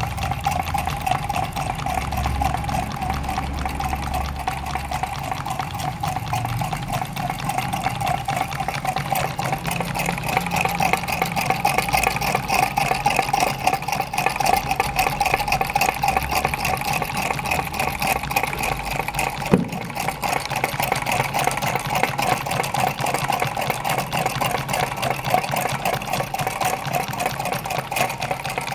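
Small homemade can-built Stirling engines running on tea-light heat: their wire crank linkages and flywheels make a fast, steady mechanical clatter, with a single sharp knock about two-thirds of the way through.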